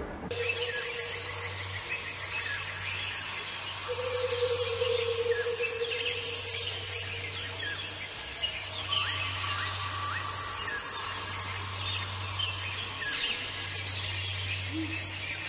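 Woodland ambience: a continuous pulsing chorus of insects chirping high, with birds calling over it, under a low steady hum. It starts and stops abruptly.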